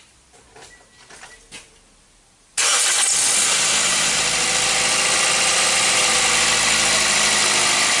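After a few faint clicks, a Toyota Corolla's 1NZ 1.5-litre four-cylinder engine catches abruptly about two and a half seconds in and keeps running steadily. It is the first start after a crank-no-start caused by wash water getting down into the spark plug wells.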